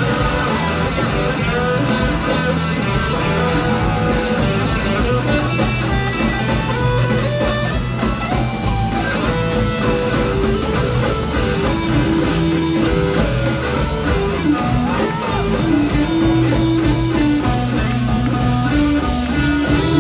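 Live blues-rock band playing, with electric guitar lines over the band, heard from within the concert audience.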